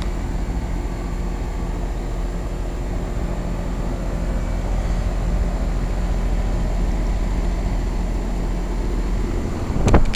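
Two Goodman 13 SEER 2.5-ton central air-conditioner condensing units running: a steady compressor hum under the even rush of the condenser fans. A brief bump near the end.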